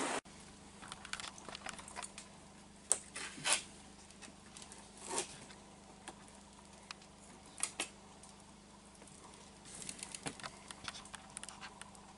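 Light clicks and scrapes of plastic cutlery on a foam plate as meat is cut and eaten, scattered and irregular, with a denser run of small ticks near the end, over a faint steady hum.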